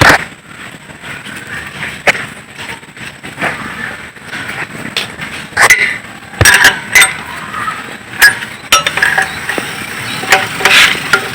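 Metal tools and engine parts knocking and clinking irregularly, some strikes leaving a short metallic ring, as an engine is taken apart by hand.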